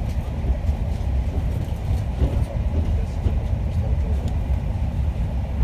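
Steady low rumble of a limited express train running along the line, heard from inside the passenger car, with faint clicks from the track.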